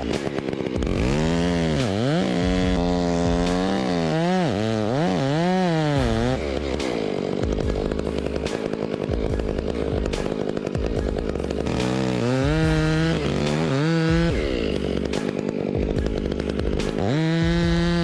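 Chainsaw revving up and down several times, then running steadily as it cuts into wood for several seconds. It revs again and holds at high speed near the end.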